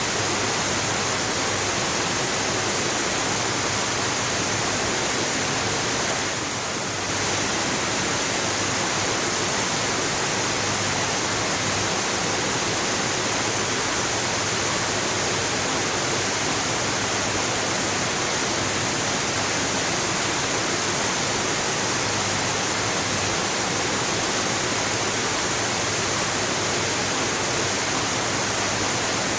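Waterfall: a steady, dense rush of falling water, with one brief slight dip in level about six seconds in.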